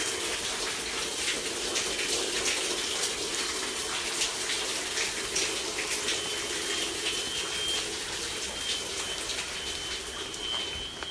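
Water running and dripping down inside a storm-wrecked building from a still-live supply on an upper floor, a steady rush with many small splashes. A fire alarm's thin high tone sounds on and off in the background.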